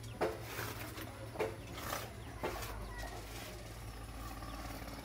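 Bicycle tyre and inner tube being worked off the wheel rim by hand: a few light knocks and rubbing of rubber against the metal rim, the knocks spread over the first two and a half seconds.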